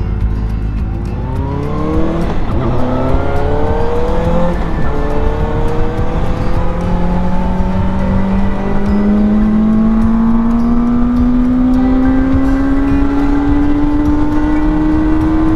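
Benelli 600i's inline-four engine accelerating from a standstill. The revs climb and drop at two quick gear changes in the first few seconds, then rise slowly and steadily in a higher gear, over a low rush of wind and road noise.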